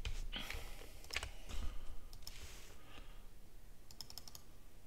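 Computer keyboard keys and mouse buttons clicking: scattered single clicks, then a quick run of several clicks about four seconds in, as Blender hotkeys are pressed.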